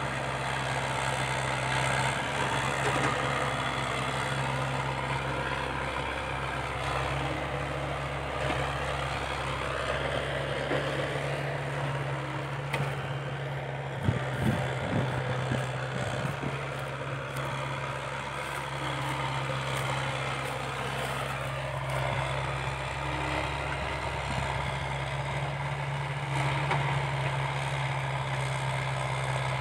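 Diesel engines of a Komatsu mini excavator at work and a six-wheel dump truck beside it, running with a steady deep drone. A few short knocks come about halfway through.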